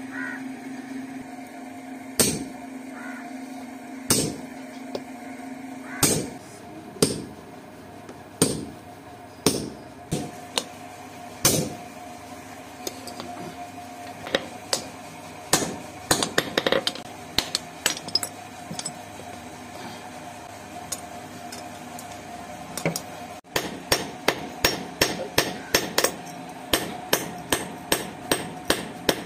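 Hand hammer striking red-hot steel on an anvil, forging an axe head out of an old claw hammer. Single blows come one to two seconds apart at first, then steady quicker strikes about two a second near the end.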